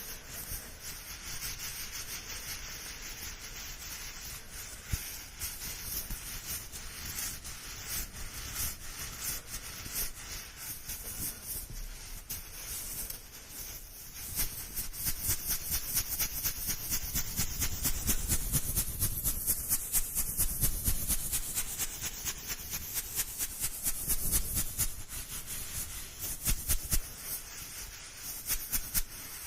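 Fast, dense rubbing strokes with a high hiss, a close-up ASMR trigger sound, growing louder for several seconds midway and then easing off.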